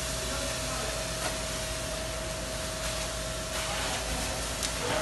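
Market stalls burning: a steady rushing roar of the fire with a few faint crackles and pops, and a thin steady high tone running underneath.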